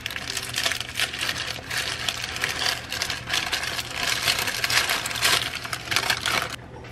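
Baked parchment-paper packet being unfolded and pulled open by hand, the stiff paper crinkling and crackling without a break, stopping shortly before the end.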